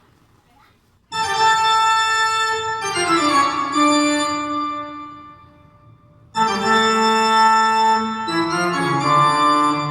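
Recorded music played through a KT150 push-pull valve amplifier: sustained keyboard chords with an organ-like sound. The first phrase starts about a second in and changes chord twice before fading, and a second phrase enters past six seconds.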